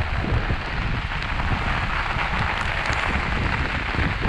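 Heavy rain pouring down in a steady hiss, with scattered sharper drop hits and an uneven low rumble of wind on the microphone.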